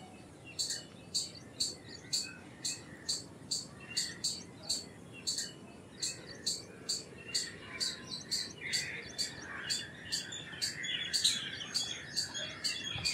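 Squirrel calling with a steady run of short, sharp, high chirps, about three a second. A softer twittering runs underneath, busier in the second half.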